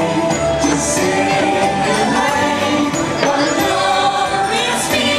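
Parade music playing loudly, with voices singing over the instruments.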